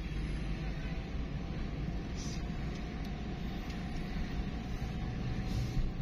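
Steady low rumble of engine and tyre noise heard from inside the cabin of a moving car, with a faint steady hum. There are two brief hissy swells, about two seconds in and near the end.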